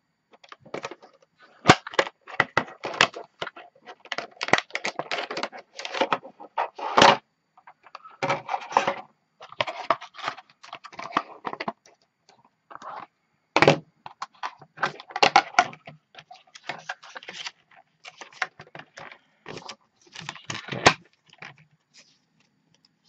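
Retail case packaging being opened by hand: a stiff clear plastic tray and cardboard backing crackling, clicking and rustling in irregular bursts, with a few sharp snaps.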